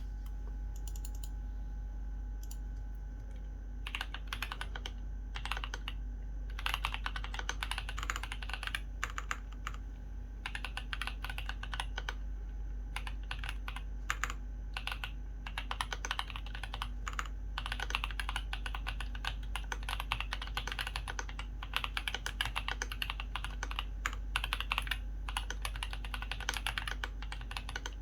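Typing on a KBDfans Maja X Vulcan ergonomic mechanical keyboard with a brass plate, foam-modded case and lubed, filmed Gazzew Boba U4T tactile switches, tuned for a deep "thock". A few scattered keystrokes at first, then fast continuous typing from about four seconds in.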